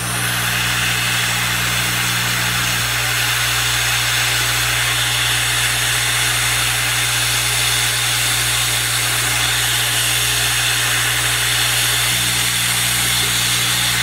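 Hot air rework gun blowing a steady rush of hot air onto a surface-mount component on a laptop logic board, heating it to melt its solder so it can be lifted off. A steady low hum runs underneath.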